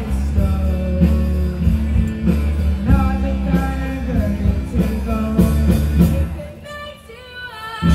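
A live rock band of young children playing electric guitars, bass and drums while a young singer sings into the microphone. The music drops in level for about a second near the end.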